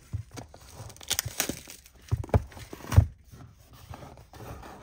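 Plastic shrink wrap crinkling and tearing as it is pulled off a cardboard trading-card box, with irregular crackles and handling knocks. A louder knock comes about three seconds in, as the box is handled against the table.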